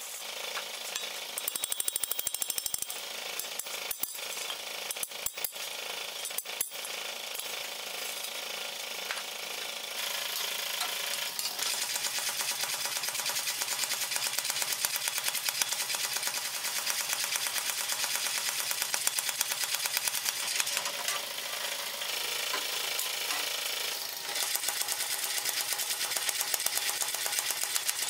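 A few separate hammer blows on the anvil early on. Then, from about a third of the way in, a mechanical power hammer pounds a red-hot flat bar in rapid, even strokes, drawing it out. The strokes ease briefly about three-quarters of the way through and pick up again.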